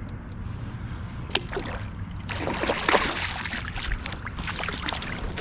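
Water splashing and rushing around a small fishing boat, louder and choppier from about two seconds in, over a steady low rumble, with a single sharp click early on.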